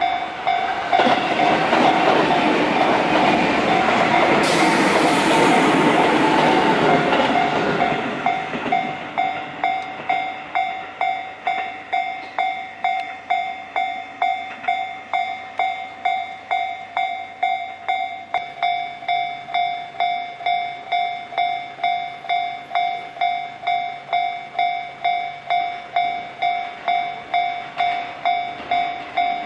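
Tobu Railway train passing over a Japanese level crossing for about the first eight seconds, while the crossing's electronic warning bell rings steadily, about one and a half strikes a second. The bell keeps ringing after the train has gone.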